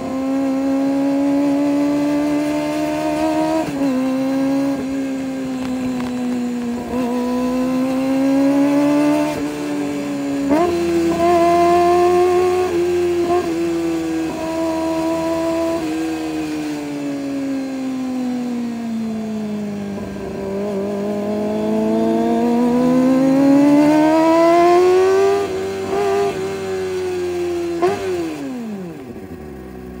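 Kawasaki ZX-25R's 249 cc inline-four engine running through an Orion aftermarket exhaust, its pitch rising and falling steadily with a few sudden steps up and down. Near the end the pitch drops steeply as the engine comes off the throttle toward idle.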